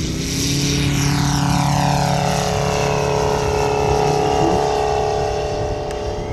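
Five-cylinder radial engine of a 1/3-scale radio-controlled Stearman biplane running steadily in flight, its pitch sliding down as it passes by in the first few seconds.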